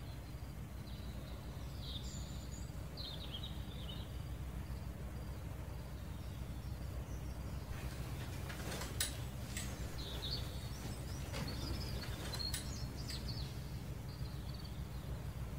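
Quiet room ambience with a low steady hum, and faint bird chirps outside: a few about two to four seconds in and more between about ten and thirteen seconds. A handful of short sharp clicks come between about eight and thirteen seconds in.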